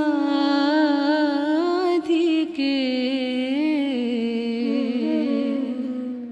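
Indian classical music: a slow, wordless vocal melody, hummed or sung in long notes with gliding ornaments, briefly broken twice about two seconds in.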